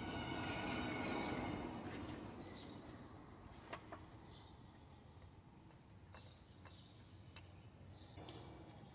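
Faint background sounds while bolts are fetched: a droning, engine-like hum fades out over the first two seconds, birds chirp now and then, and a few light clicks of bolts and tools being handled come a few seconds in.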